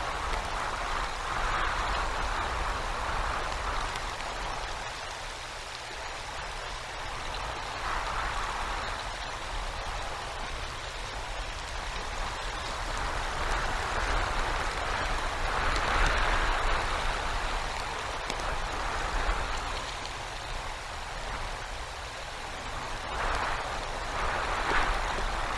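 Winter storm noise on an outdoor nest-cam microphone: wind rushing in gusts, with a low rumble of buffeting and a hiss of icy rain and snow. The sound swells several times, most strongly about halfway through and again near the end.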